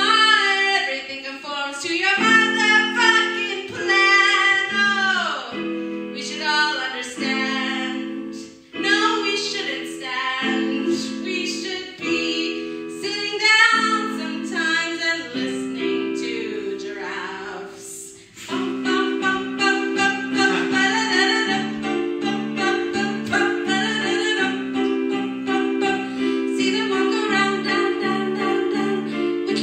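A song: a woman singing a melody over instrumental accompaniment. About two-thirds of the way through there is a brief break, after which the accompaniment settles into a steady pattern of repeated chords.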